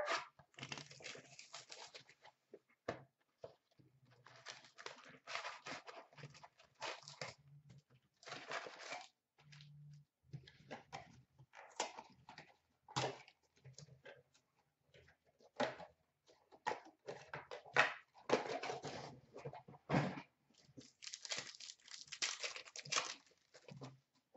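Plastic wrapping of a hockey card box and its packs being torn open and crinkled by hand, in many irregular short bursts of tearing and rustling.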